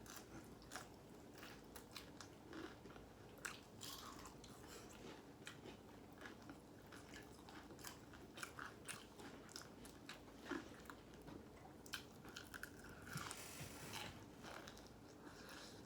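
Faint crunching bites and chewing of crispy fried chicken, a scatter of short crunches throughout.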